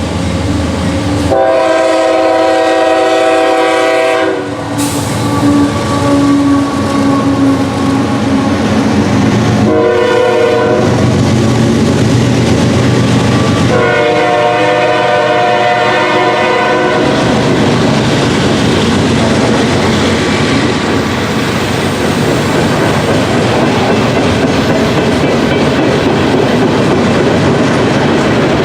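A CSX train's locomotive horn sounds three times: a long blast, a short one, then another long one. Then the train passes with loud, steady wheel and rail noise.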